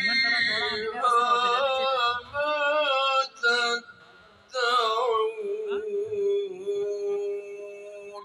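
A man's voice singing an Urdu nasheed in melodic phrases. It pauses briefly just before halfway, then ends on one long held note that fades out.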